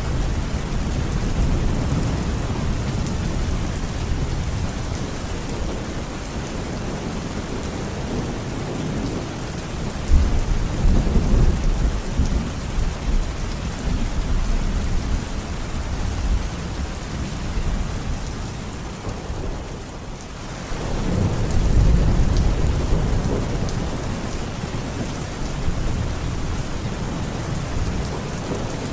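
Steady heavy rain with rolling thunder, the rumbles swelling about a third of the way in and again about two-thirds in.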